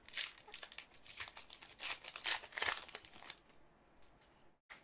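Upper Deck hockey card pack wrapper being torn and peeled open by hand, a dense crinkling and tearing for about three and a half seconds. It then gives way to quieter handling of the cards, with one short rustle near the end.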